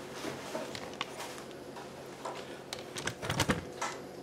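Camera handling noise: scattered light clicks and taps, with a short cluster of knocks and a low thud about three seconds in.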